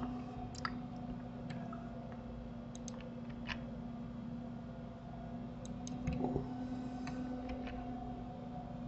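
Faint, scattered clicks of a computer mouse and keyboard keys, a few isolated clicks spread irregularly through the stretch, over a steady low electrical hum. A slightly louder, duller sound comes about six seconds in.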